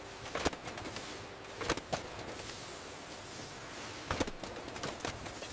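Canning-line machinery running with a steady hiss, broken by scattered sharp clicks and clinks, several close together about four seconds in.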